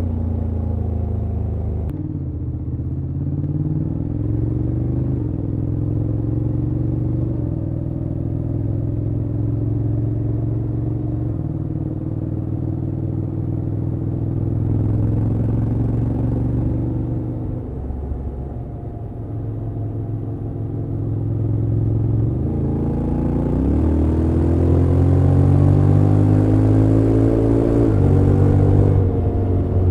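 Honda X-ADV 750's parallel-twin engine and exhaust while riding, rising and falling in pitch with the throttle and stepping up and down several times. It eases off a little past halfway, then climbs in pitch and gets louder from about two-thirds of the way through.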